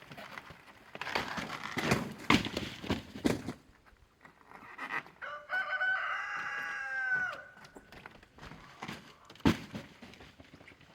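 A rooster crowing once, a single held call of about two seconds with a slight drop in pitch at its end. Before it come several seconds of sharp clattering knocks, and there is one more sharp knock near the end.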